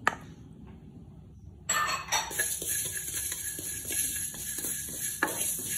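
Spatula stirring fenugreek and cumin seeds dry-roasting in a metal pan: the seeds scrape and rattle against the pan with many light clicks, starting about two seconds in.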